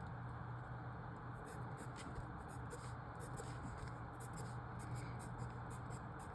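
Handwriting: short, irregular scratchy strokes of a writing tool, over a low steady hum.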